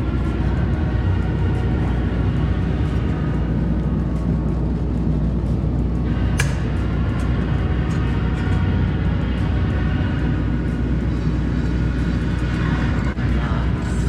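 Background music over a steady low rumble, with one sharp click about six seconds in.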